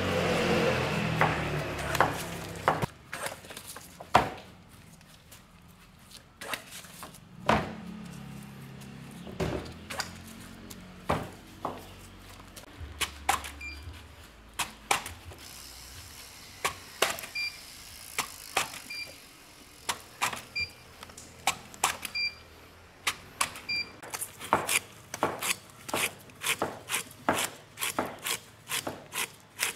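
Knife cutting pineapple and knocking against a cutting board. The sharp knocks are scattered at first, then become a steady run of about two a second near the end. A louder, noisier passage fills the first few seconds.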